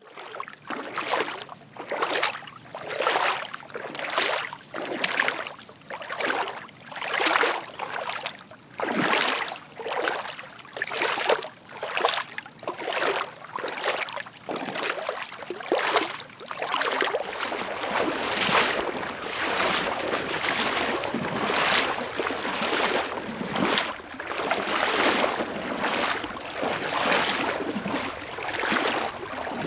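Footsteps wading through water, each step a splash, about one a second; about two-thirds of the way through the steps come quicker and run together into a near-continuous sloshing.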